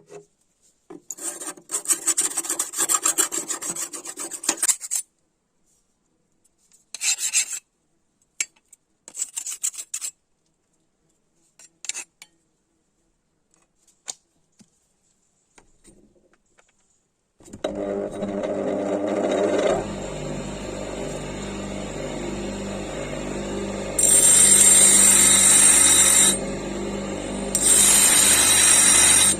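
Hand work on the steel of a chainsaw-bar knife blank: a few seconds of steady scraping strokes, then scattered short scrapes. About two-thirds of the way in an electric grinding tool starts and runs steadily, with two louder spells of grinding against the steel near the end.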